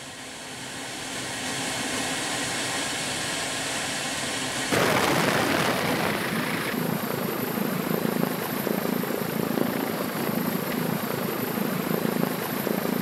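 Bell V-280 Valor tiltrotor's proprotors and engines running near the ground, a steady rushing noise. It grows louder about five seconds in and then carries a regular rotor-blade beat.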